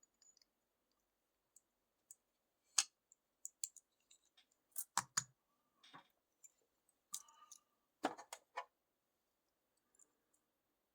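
Scattered sharp metallic clicks and taps, about a dozen, from lock-picking tools working the pins of a six-pin lock with gin-style driver pins; the louder ones come in small clusters in the middle.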